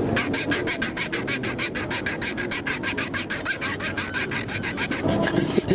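A saw rasping through a bicycle lock in quick, even strokes, about eight a second.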